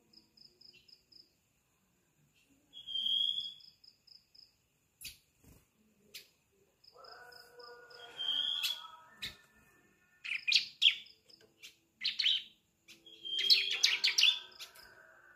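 Juvenile bar-winged prinia chirping: a few short, rapid high trills, then from about ten seconds in, louder bursts of buzzy chirps. It is the immature, still-forming song of a young bird just starting to sing.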